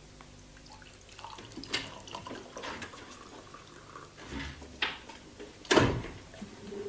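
Liquid poured from a glass bottle into a drinking glass, with a few glassy clinks and knocks; the loudest is a heavy thud about six seconds in.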